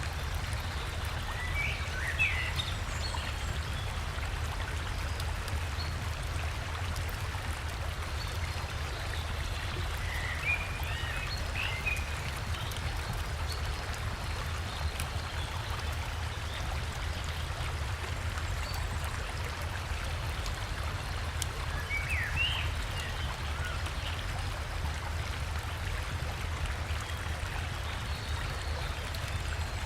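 Flowing river water rushing steadily, with short bursts of forest birdsong chirping three times.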